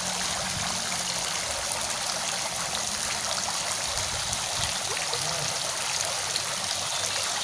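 Flowing water running steadily: an even, unbroken rushing sound.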